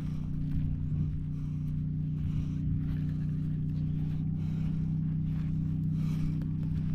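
A steady low motor-like hum, with footsteps crunching on dry gravel and shell-covered ground at a walking pace.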